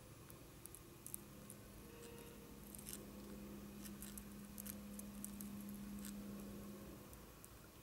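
Faint, irregular crisp clicks and scratches from a European hornet queen working at the paper cells of her nest while feeding the larvae, with a low steady hum from about a second in that fades near the end.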